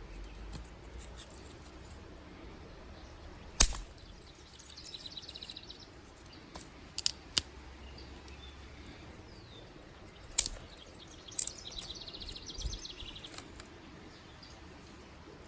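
Sticks snapping in a handful of sharp cracks, the loudest a few seconds in and the rest spread out, two or three close together in the middle. A small bird sings a rapid trill twice in the background.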